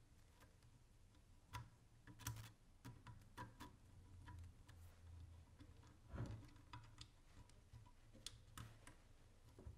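Faint, irregular small clicks and ticks of a screwdriver and metal parts as a KV-D2P remote pressure switch, on its Picatinny adapter, is fastened onto a Picatinny rail.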